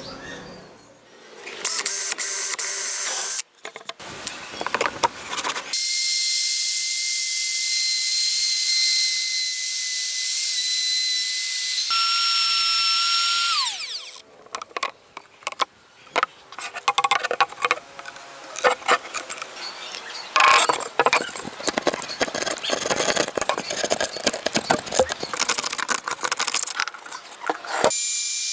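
Makita cordless trim router running at full speed with a steady high whine, then slowing with a falling pitch about halfway through. After that the bit cuts a circle through a wooden board with an uneven, crackly noise, across several short edited clips.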